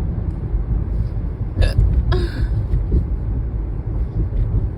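A person hiccups: a sharp catch about one and a half seconds in, followed by a short breathy sound, over the steady low rumble of a car driving.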